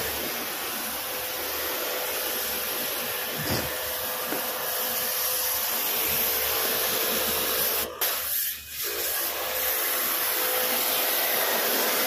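LG rooftop package air-conditioning unit running: a steady rush of fan and airflow noise with a hiss and a faint steady hum, dipping briefly about eight seconds in.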